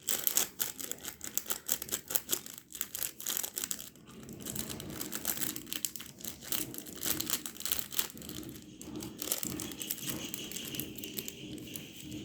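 Slime being worked by hand: rapid sticky clicks and crackles, sharper and more separate for the first few seconds, then denser and softer.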